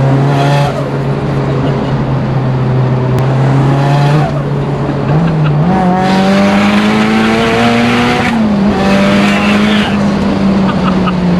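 Turbocharged SR20 four-cylinder engine of a Nissan Silvia S15 heard from inside the cabin. It pulls at a steady pitch, climbs in revs from about five seconds in, holds high, then drops back about eight seconds in.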